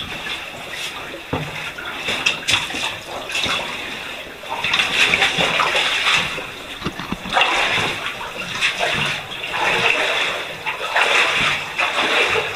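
Boots wading through shallow water, splashing and sloshing in irregular surges that grow louder about four and a half seconds in, with a few sharp knocks earlier.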